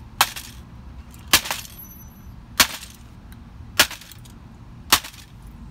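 A claw hammer striking the opened case of a Toshiba laptop five times, about one blow every second and a bit, each a sharp crack of metal on hard plastic and electronics.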